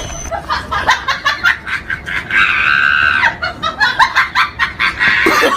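Rapid bursts of laughter with a high-pitched scream held for about a second in the middle.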